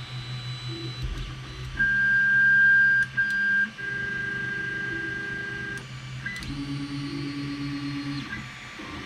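Creality Ender 3 Pro 3D printer's stepper motors whining as the axes move at the start of a print. There are several steady-pitched moves of one to two seconds each, the loudest in the first half, with a few light clicks over the printer's steady hum.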